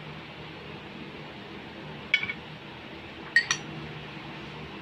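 A metal spoon clinking against a ceramic dish while pineapple chunks are spooned onto a plate of fried rice: one short ringing clink about two seconds in, then two quick clinks together a second later.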